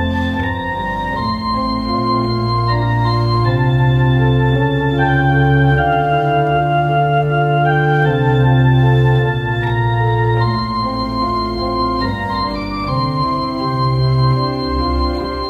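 Two-manual electronic organ playing slow, sustained chords over a held bass line, the chords changing every second or two.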